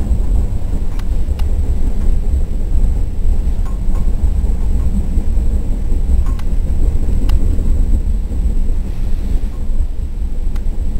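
Steady low rumble of a train running along the track, heard from the front of the train, with a few faint clicks scattered through it.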